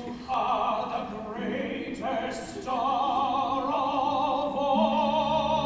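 Theatre orchestra music with singing: short phrases of wavering notes, then from about three seconds in a chord of several notes held with vibrato, a low note joining near the end.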